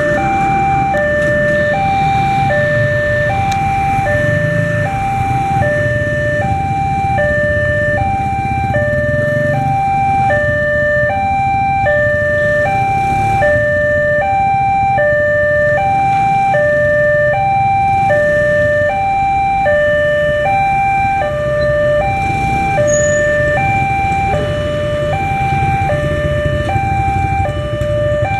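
Railway level-crossing warning alarm: an electronic two-tone signal, a higher and a lower tone alternating evenly without pause, over the low running noise of motorcycles.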